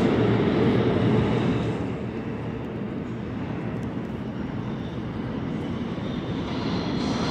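New York City subway train on the IND Central Park West line running through the 116th Street station: a steady low rumble of wheels and motors that grows louder and brighter near the end.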